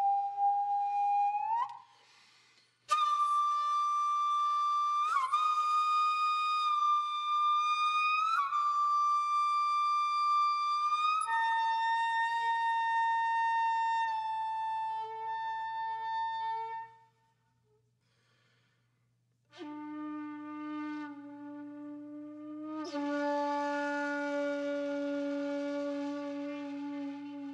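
Background music: a slow melody of long, held, wind-instrument-like notes, with a silent gap of about two seconds past the middle.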